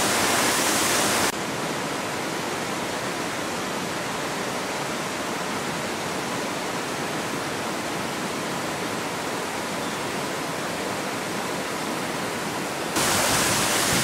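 Steady rush of a woodland waterfall and cascading stream of white water over rocks. The level steps down about a second in and back up near the end.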